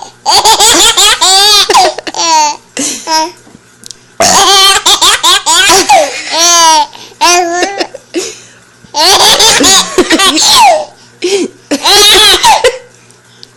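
A young child laughing hard in about four long, high-pitched bouts with short breaks between them.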